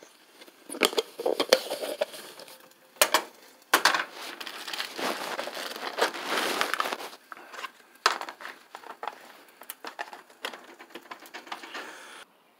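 Clear plastic film wrap crinkling and crackling around a burger patty as it is handled, in irregular bursts with a denser stretch in the middle and scattered clicks toward the end.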